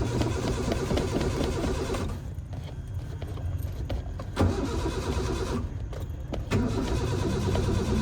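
A car's starter cranking the engine in about three separate goes, each starting suddenly, without it catching and running: a car that won't start.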